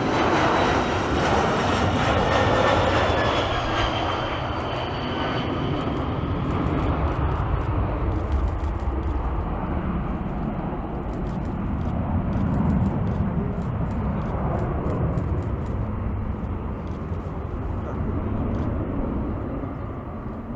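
Boeing 767's jet engines at go-around thrust: a loud jet roar with high whining tones that fall in pitch over the first five seconds as the airliner passes and climbs away, then a steady low rumble as it recedes.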